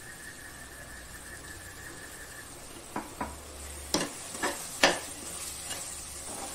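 Metal spatula scraping and knocking against the pressure cooker pot while stirring thick frying masala: a handful of strokes from about three seconds in, over a faint steady sizzle.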